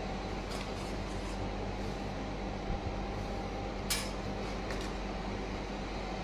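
Steady background hum and hiss of room noise with a low electrical drone, broken by a few faint clicks; the sharpest click comes about four seconds in.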